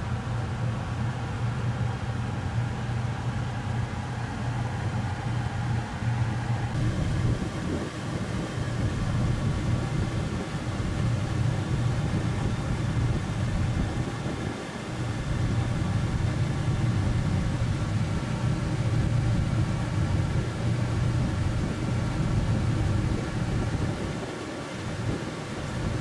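Outdoor air-conditioner condensing units running: a steady low mechanical hum with fan noise, easing off briefly about halfway through and again near the end.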